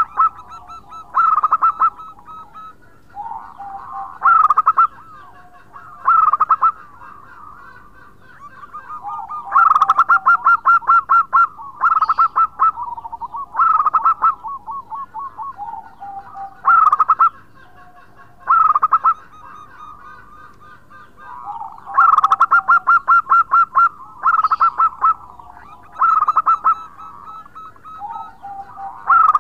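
Zebra dove (perkutut) singing: loud, rapidly rippling coos repeated in phrases about every two seconds, with softer, lower notes between them.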